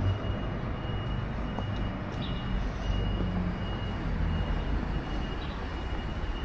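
Outdoor city street ambience: a steady, low rumble of traffic noise.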